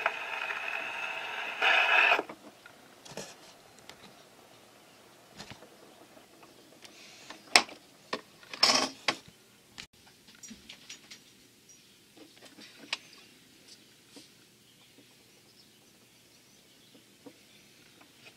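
A 78 rpm record on an acoustic wind-up gramophone plays its last notes and stops about two seconds in. This is followed by the handling of the gramophone's metal tone arm and soundbox: a few sharp metallic clicks and knocks, the loudest around the middle, then faint small ticks.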